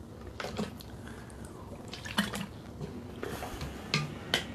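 About half a dozen faint, irregularly spaced clicks and ticks, each very short.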